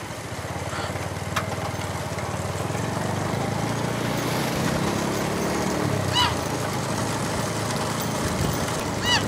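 A pack of motorcycles running together in a steady, dense engine drone behind racing bullock carts. Two brief shrill sounds stand out about six and nine seconds in.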